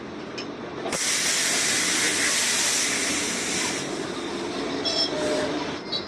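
Compressed air hissing from an air line, starting suddenly about a second in, loud and steady for a few seconds, then easing off.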